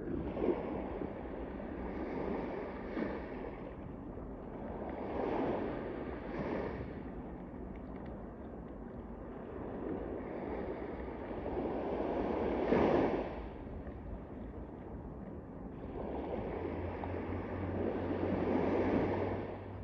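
Small sea waves washing onto a pebble beach, the wash swelling and fading four times.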